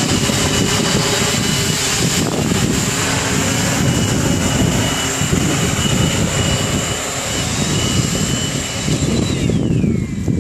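Octocopter drone's electric motors and propellers whining steadily, with wind rumbling on the microphone. About nine seconds in the whine falls in pitch as the motors slow down.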